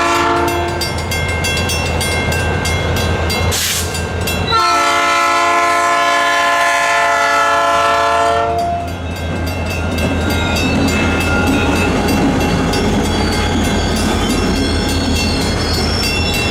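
Freight train's diesel locomotive horn: the tail of one blast at the start, then one long blast of about four seconds, over the steady deep rumble of the locomotive. After the horn, wheels rolling on the rails, with a faint high squeal near the end.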